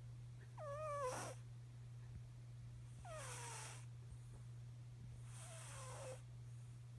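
Cat snoring in its sleep: three breaths about two and a half seconds apart, each a high tone that falls in pitch, with a hiss of air.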